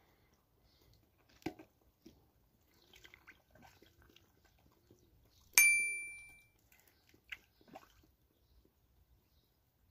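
A single bright bell-like ding about midway, ringing out and fading over about a second, of the kind a subscribe-button notification effect makes. It sits over a few soft clicks and faint low poultry calls.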